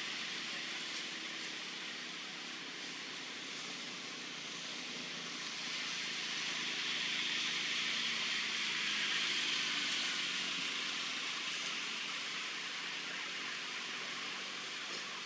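Steady outdoor background hiss that swells for several seconds in the middle and then eases off again.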